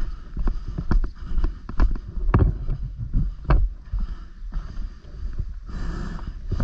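About a dozen irregular sharp clicks and knocks over a constant low rumble of wind and handling noise, with a short noisy rush near the end.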